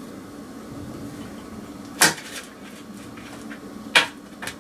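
Plastic rice paddle clacking against a metal pot and a stainless-steel plate while cooked rice is scooped out and served: two sharp knocks about two seconds apart, with a lighter tap just after the second.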